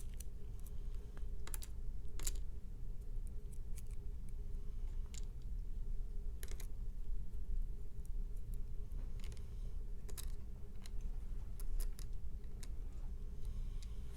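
About a dozen light, irregular clicks and taps as small metal lock pins and sliders are handled on a desk, over a steady low hum.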